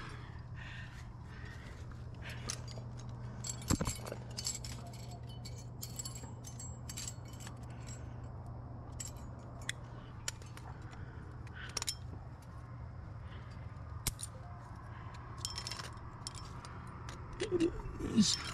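Climbing gear on a trad rack (carabiners and cams) clinking and jingling in scattered small metallic clicks as the climber moves, over a steady low hum.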